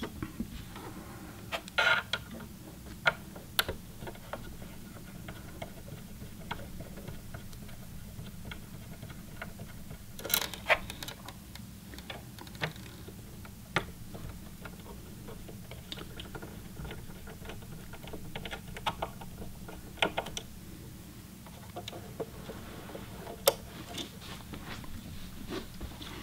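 Scattered small clicks and taps of a screwdriver and metal parts being handled on a sewing machine's needle plate and bobbin area, a few sharper knocks standing out, over a steady low hum.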